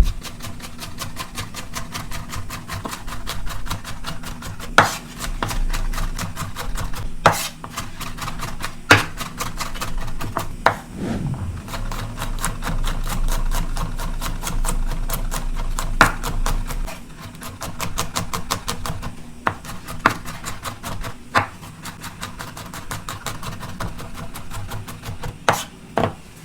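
Knife rapidly chopping food on a cutting board: a continuous run of fast, even strokes, several a second, with a few louder knocks among them.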